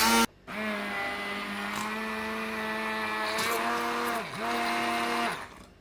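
Moulinex electric blender motor running, blending cucumber pieces with water: a short loud burst at the start, then a steady motor whine that briefly dips in pitch and picks up again about four seconds in, before stopping near the end.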